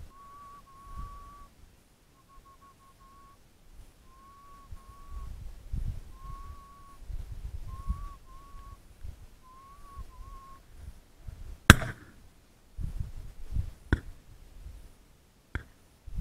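A thin whistle in short repeated phrases at one pitch, then a single sharp, loud shotgun shot about twelve seconds in, followed by two fainter knocks.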